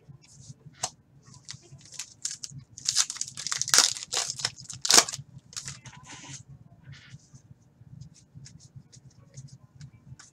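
Hockey card pack wrapper being torn open and crinkled by hand. The crackling comes in scattered strokes, loudest in a dense burst about three to five seconds in, then lighter crinkles as the cards are handled.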